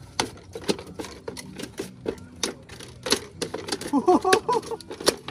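A freshly landed fish flapping in a landing net on a bamboo-slat deck: irregular sharp slaps and taps, several a second.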